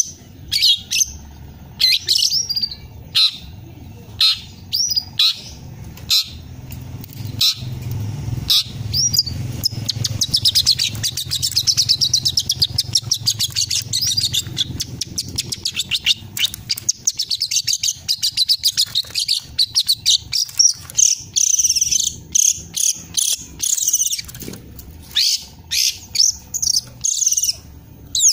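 A young long-tailed shrike (cendet) singing a varied, mimicking song: many short separate chirps and calls, a long run of rapid chattering in the middle, and fast repeated notes near the end. It is a juvenile bird delivering the song material it has learned.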